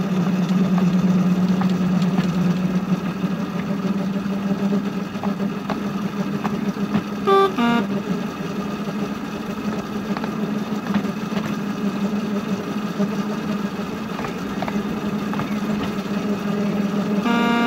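Miniature railway shunter locomotive's engine running with a steady drone from the cab. A short pitched call is heard about seven seconds in, and another near the end.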